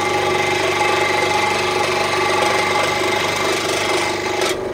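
Central Machinery 16-inch scroll saw running at full speed, its new sharp blade sawing through oak. About four and a half seconds in the cutting noise drops away suddenly as the cut finishes, and the saw keeps running on its own.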